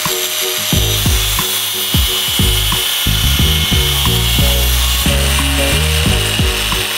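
Porter-Cable angle grinder with a cutoff wheel cutting through a metal wastegate bracket: a steady high whine and hiss of the wheel in the metal. Background music with a bass line and beat plays along with it.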